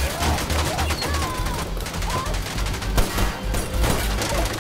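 Rapid bursts of automatic gunfire over an action-film score with a pulsing low beat.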